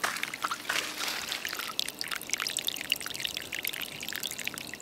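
Water spraying out of an open barb valve on a half-inch drip irrigation mainline and splashing onto the soil, flushing dirt out of the valve before the drip tape is connected. A steady splashing trickle.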